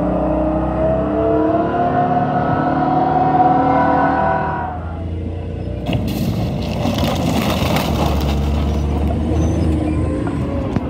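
A tank's engine revving, its pitch rising steadily for about four seconds and then falling away. A burst of harsh clattering, crunching noise follows about six seconds in, over a steady low engine rumble.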